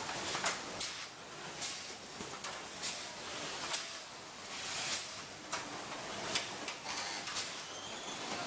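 Resistance spot-welding guns on a pickup-truck body welding line: irregular sharp snaps and short hisses, roughly two a second, over a steady high hiss of plant noise.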